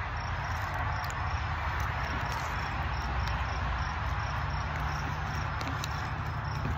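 An insect chirping steadily, short high chirps repeating about three times a second, over a low steady background rumble. A few light crinkles of a plastic snack wrapper being handled come near the end.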